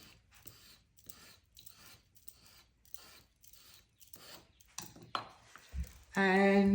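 Metal 2B piping nozzle dragged over soft modelling paste in repeated strokes, a faint scraping about twice a second, raking a texture into the paste. A woman starts talking near the end.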